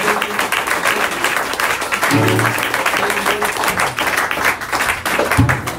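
Small audience applauding at the end of a song, with a couple of short low bass notes, one about two seconds in and one near the end.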